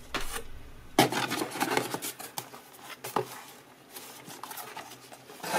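Cardboard boxes being handled: a small cardboard kit box scraping and rubbing against the inside of a cardboard shipping box as it is lifted out, with a flurry of scraping about a second in, a sharp knock about three seconds in and another brief scrape near the end.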